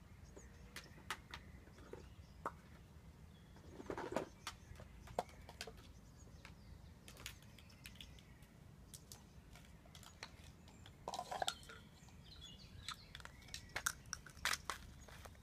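Scattered light clicks and knocks of plastic toy stacking cups being pushed, tipped and picked up by a cockatoo, with a few small clusters of clatter.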